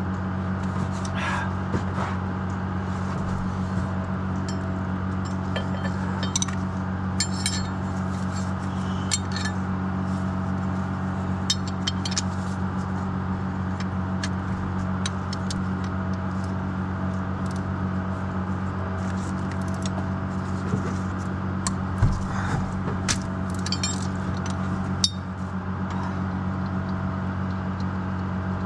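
Wrench and socket clinking and scraping on metal as the bolts of a tractor engine's torsional damper are worked loose, with scattered sharp clicks. Under it the steady drone of an engine running.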